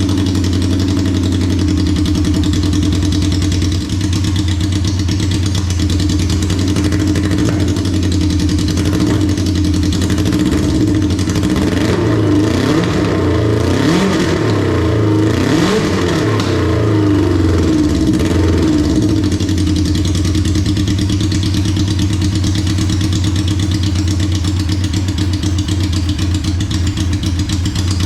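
A 1982 Yamaha XJ750 Seca's air-cooled inline-four engine running just after its first start. It idles, is revved up and down several times in the middle, then settles back to a steady idle. It runs badly, which the owner puts down to remaining carburettor problems.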